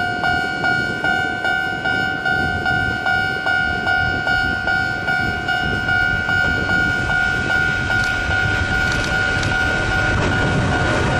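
Railway level-crossing warning bell ringing in a steady repeating pattern, about two and a half strikes a second, with the rumble of an approaching train building toward the end.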